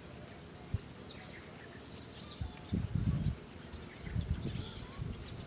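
Faint, short high bird chirps over a steady outdoor hiss, followed from about halfway through by dull low rumbling thumps that are louder than the chirps.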